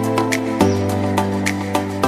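Background music: a calm instrumental with held bass notes and a light, steady ticking beat.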